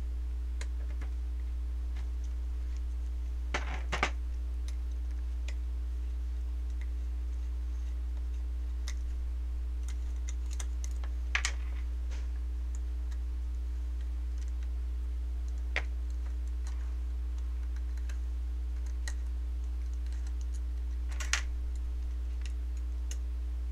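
Scattered light clicks and taps of small parts being handled against an airsoft gearbox shell while a shim is changed, the loudest about four seconds in. A steady low hum runs underneath.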